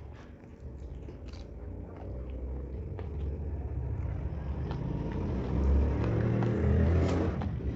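A motor vehicle passing, its low engine rumble growing louder to a peak near the end and then fading, with chewing clicks over it.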